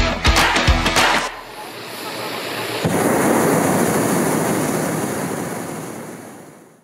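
Background music with a beat that stops about a second in, followed by a steady rushing noise that gets louder about three seconds in and then fades out.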